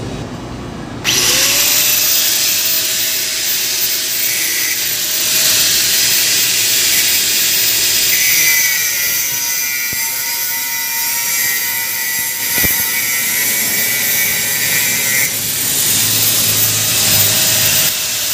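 Handheld angle grinder with a cut-off disc spinning up about a second in and cutting through steel, a steady motor whine over the hiss of grinding. Its pitch sags a little as the disc is loaded in the middle of the cut.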